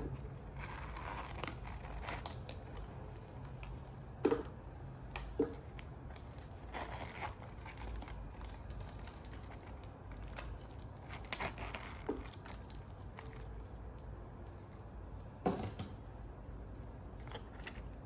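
Soft rustling and scraping as a small quilted leather zip pouch is handled, opened and has a card slid into it, with four sharp clicks spread through. A steady low hum runs underneath.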